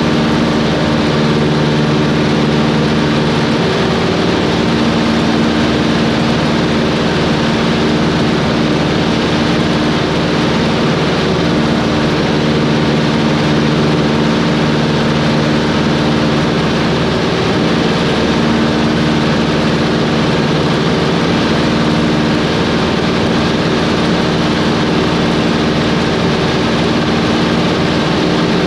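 Cessna 140's piston engine and propeller droning steadily in flight, an even hum with no change in pitch or level.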